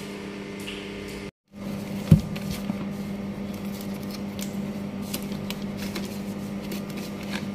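Cardboard and plastic packaging of a GoPro Hero 10 box being opened by hand: faint rustles and small clicks, with one sharp knock about two seconds in, over a steady low hum.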